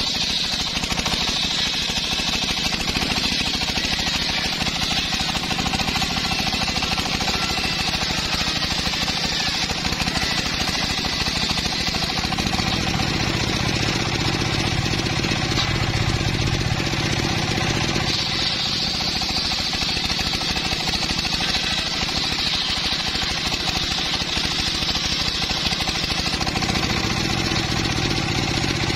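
Homemade engine-driven circular saw bench ripping a teak log: the large blade whining through the wood over the engine running under load. For several seconds in the middle the cut sounds lower and heavier, the engine working harder, before the high whine of the blade comes back.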